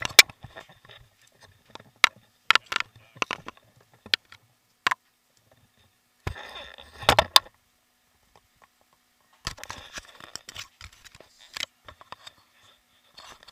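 Camera handling noise: scattered sharp clicks and knocks with bursts of rubbing and rustling as the camera is moved against a wetsuit and dive gear, with quiet gaps between.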